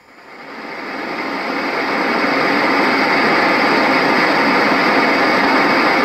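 Roffie N600 sound machine playing its white noise sample just after being switched on: a steady hiss that fades up over the first two seconds, then holds steady.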